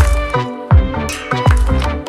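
Background music with a steady beat: a deep kick drum about every three-quarters of a second under sustained melodic tones.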